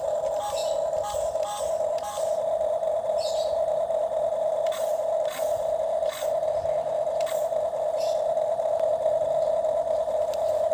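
Toy excavator with a steady high-pitched electric hum, probably its small motor, and irregular light plastic clicks and scrapes as it works.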